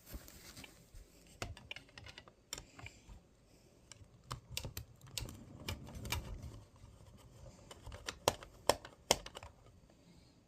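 Faint, irregular plastic clicks and taps as the battery compartment of a toy target base is opened and AA batteries are fitted, with a few louder clicks near the end.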